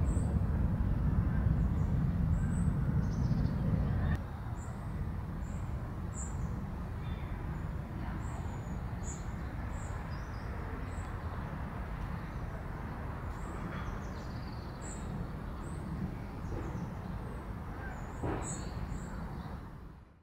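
Outdoor ambience: small birds giving short, high chirps every second or so over a steady low rumble, which drops to a quieter level about four seconds in.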